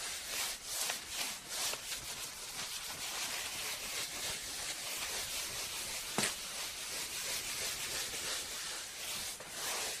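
Wiping a counter or tabletop: repeated rubbing strokes across the surface, with one sharp tap about six seconds in.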